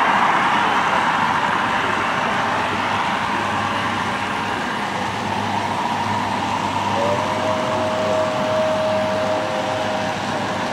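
HO scale model trains running on a club layout amid a steady hubbub. About seven seconds in, a two-note tone sounds and holds for about four seconds.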